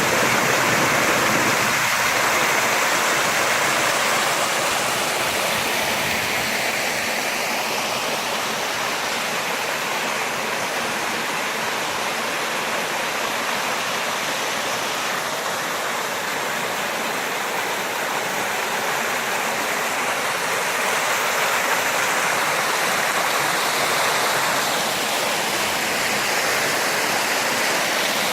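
Steady rush of flowing water, a continuous even hiss that starts abruptly and holds level.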